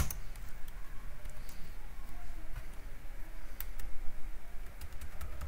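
Computer keyboard keystrokes: one sharp key press at the start, then scattered faint key taps, a few seconds apart.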